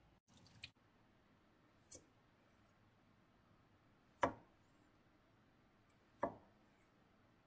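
Chef's knife slicing a cucumber into thin rounds on a plastic cutting board: four separate knife taps on the board, roughly two seconds apart, the loudest about halfway through.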